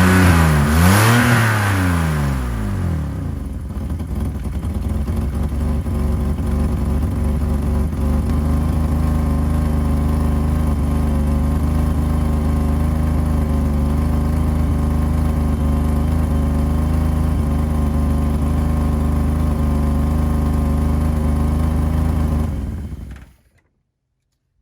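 1985 BMW 535i's M30 straight-six engine blipped twice, then settling to a steady idle until it is switched off near the end. The car has an exhaust leak where the headers meet the catalytic converter.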